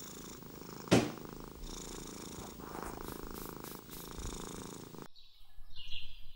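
A cat purring steadily, with a sharp falling whoosh about a second in. About five seconds in the purring cuts off and birds chirp.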